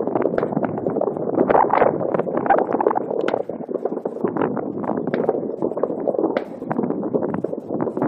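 Fireworks going off: many irregular pops and bangs in quick succession over a steady rumble.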